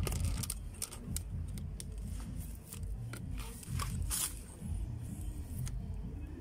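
Handling noise from a camera rubbing against clothing as it is carried: low rumbling thumps and fabric rustle with scattered sharp clicks.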